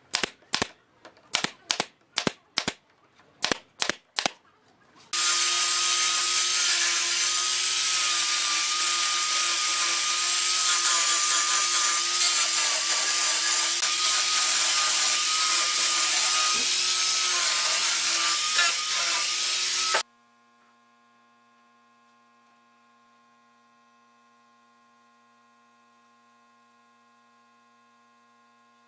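A pneumatic brad nailer firing about ten quick shots into pine boards, then an angle grinder with a sanding disc running steadily against the wood for about fifteen seconds before cutting off suddenly, leaving only a faint steady hum.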